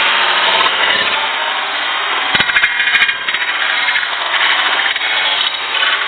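Loud, continuous sizzling and scraping of glazed fried chicken being tossed with spatulas in a hot wok, with a couple of sharp clacks about two and a half and three seconds in.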